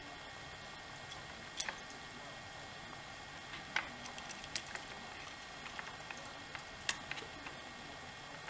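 Hands handling small plastic chainsaw fuel-system parts and rubber fuel line: a handful of scattered light clicks and taps, the sharpest about four and seven seconds in, over a low steady hiss.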